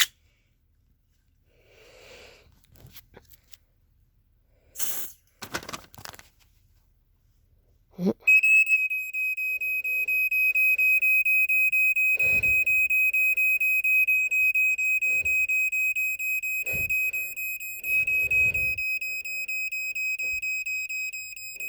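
Two short hisses of aerosol smoke-tester spray about five seconds in. About three seconds later the 1987 Black & Decker Flamebuster SMK6D smoke alarm's piezo horn goes off in a loud, steady, high-pitched tone, set off by the test smoke, and keeps sounding.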